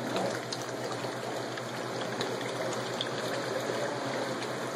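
Steady rush and trickle of water circulating in a pumped fish stock tank, with a low steady hum underneath.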